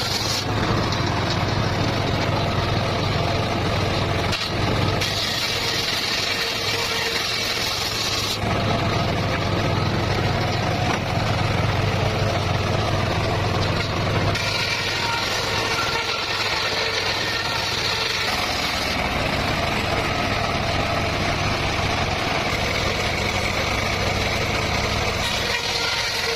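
Circular saw rig running steadily while sawing petung bamboo, a constant low machine hum whose higher tone shifts abruptly several times.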